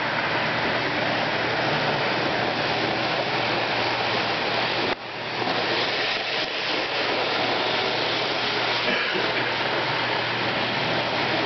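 Model train running on its track, a steady rushing whir, with a brief dropout about five seconds in.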